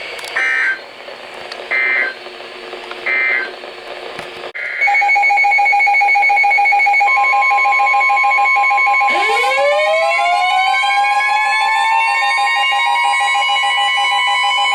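Emergency Alert System tones: three short bursts of screechy digital data tones, then about four and a half seconds in a steady two-tone alert signal starts. A second steady tone joins it, and about nine seconds in a siren winds up, rising in pitch and levelling off. These sounds mark the start of a tornado warning.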